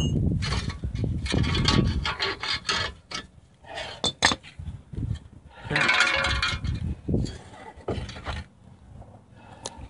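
Metal axle parts scraping and rubbing against each other as they are worked loose from a Dana 30 front axle housing. There are two sharp clinks a little after four seconds in and another spell of scraping around six seconds.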